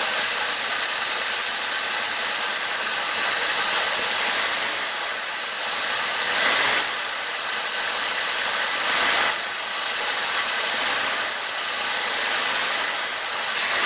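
AMC 401 V8 with an Edelbrock four-barrel carburetor idling a little high while it warms up, running again after water was blown out of the carburetor. A few brief louder surges break the steady idle.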